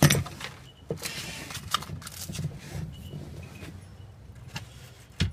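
A sharp knock, then rustling and a few light clicks as objects are handled, and another sharp knock near the end.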